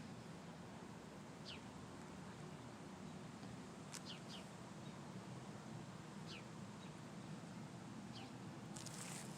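Faint short chirps from a small bird, each a quick downward glide, heard five or six times, over a steady low background hum. A short burst of noise comes near the end.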